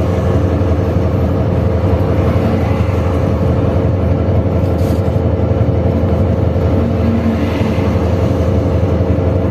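Steady engine and road rumble of a moving vehicle heard from on board, with a constant hum running through it.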